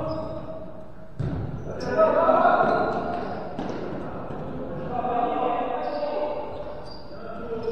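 Futsal ball kicked and thudding on a hard indoor court, with players calling out. The sounds echo in a large sports hall.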